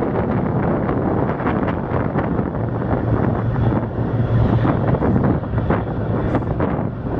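Wind buffeting the microphone over the low, steady drone of a ship's engines close by. The drone grows stronger about two and a half seconds in.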